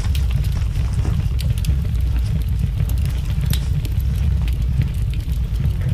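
Steady low rumble from a body-worn camera's microphone being buffeted as the wearer moves, with scattered light clicks and crunches of footsteps on debris.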